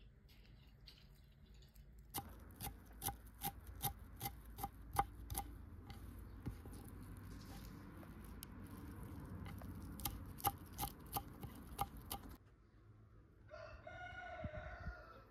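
A run of sharp taps or knocks, two or three a second, then a rooster crowing once near the end.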